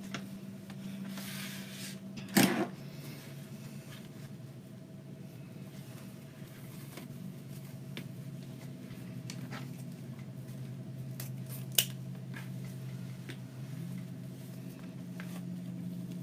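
Ribbon and craft tools handled on a cutting mat: faint rustles and small clicks, a louder knock about two and a half seconds in, and a sharp click about twelve seconds in, all over a steady low hum.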